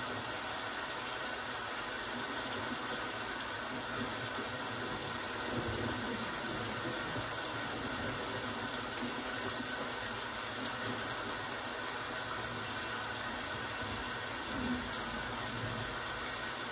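Steady rain falling, an even hiss that holds the same level without breaks.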